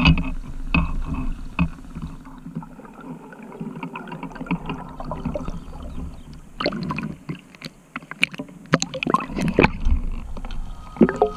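Underwater sound picked up by an action camera: a steady low rumble of water with bubbling and many scattered clicks and crackles, as a freediver rises toward the surface.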